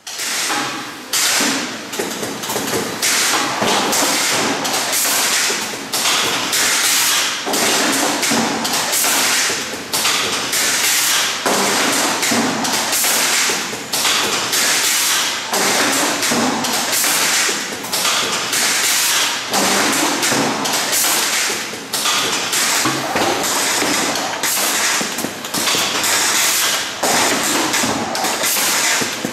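Gossamer TE-700W tray erector running, folding corrugated cardboard blanks into P84-style trays: a fast, continuous clatter of knocks and taps from the forming mechanism.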